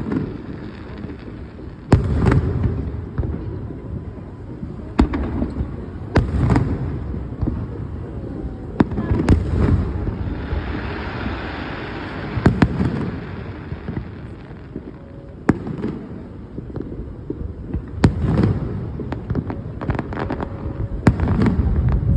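Aerial fireworks display: a sharp bang every one to three seconds, each trailing off in a low rumble, with a hissing stretch about halfway through.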